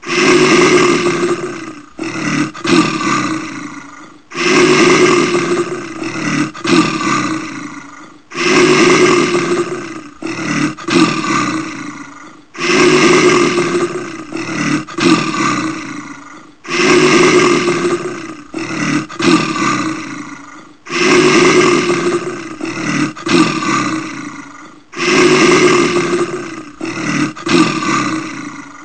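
Brown bear roaring, the same deep roar repeating about every four seconds, seven times. Each roar starts loud, breaks briefly once or twice, and fades.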